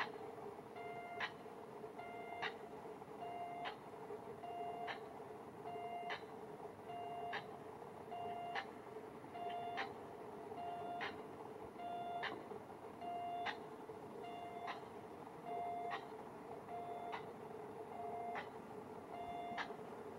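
Japanese railway level-crossing warning bell ringing continuously, a sharp ringing strike alternating with a short pitched tone, just under two rings a second, warning of an approaching train. A steady low hum runs underneath.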